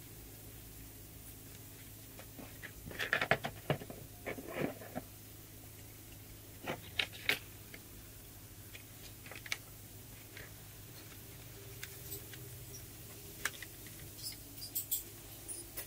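Sheeted balsa wood wing panel being handled, slid and pressed on a tabletop: short scrapes, taps and rustles in scattered clusters, about three seconds in, around seven seconds and again near the end, over a faint steady low hum.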